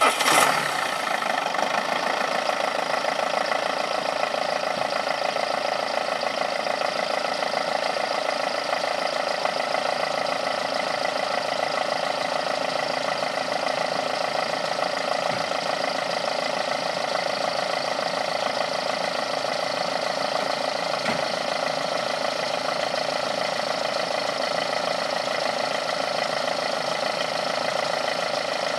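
Citroën Xantia car engine catching right at the start, then idling steadily and evenly.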